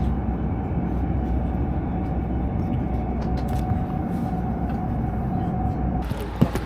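Shinkansen bullet train cabin while running: a steady low rumble with a steady mid-pitched hum, cut off abruptly about six seconds in, followed by a couple of short knocks.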